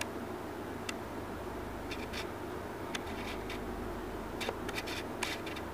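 Light, irregular clicks and ticks from the small metal parts of a 1928 Agfa Billy Record folding camera as it is handled, some single and some in quick little clusters, over a steady low hum and hiss.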